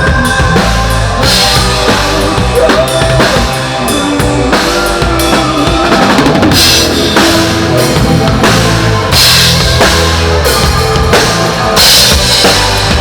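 Rock band playing loudly through the stage PA: drum kit with kick and snare hits over bass and electric guitar.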